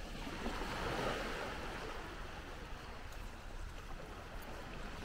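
Beach ambience: wind rumbling on the microphone with the hiss of gentle surf, swelling about a second in and easing off.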